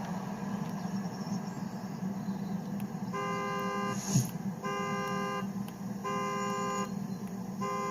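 A car's engine hums steadily at idle. About three seconds in, the car horn starts sounding in regular blasts of under a second each, repeating roughly every second and a half like a car alarm. A single sharp knock comes just after the first blast.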